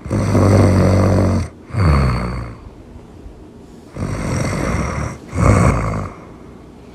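Really loud snoring: a long deep snore followed right away by a shorter one with a falling pitch, then a breath in about four seconds in that ends in another deep snore.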